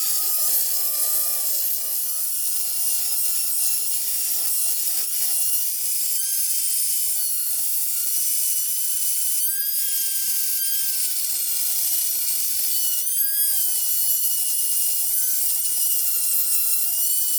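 High-speed rotary die grinder whining steadily, its pitch sagging and wavering as the burr cuts, roughing out the intake port openings of a cast-iron 318 cylinder head to match the intake gasket. There are a couple of brief scratchy flare-ups where the burr bites harder.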